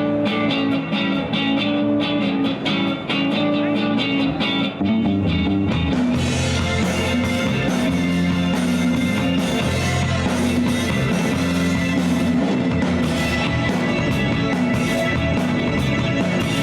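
Live rock-blues band playing an instrumental passage on electric guitar, bass and drum kit, the full band coming in more strongly about six seconds in.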